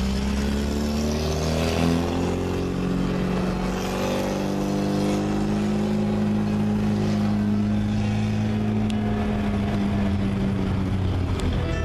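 Classic Mini's four-cylinder A-series engine running under steady load, heard from inside the small cabin. Its note drifts gently up and down, with a brief shift in pitch about two seconds in.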